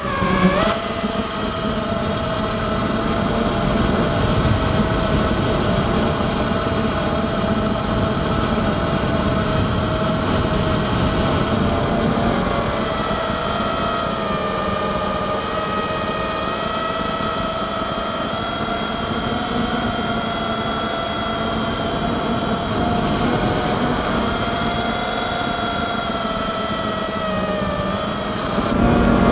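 Emax Nighthawk 280 FPV quadcopter's brushless motors and propellers whining in flight, heard through the onboard camera, the pitch drifting slowly up and down, over a rush of wind and a constant high-pitched tone.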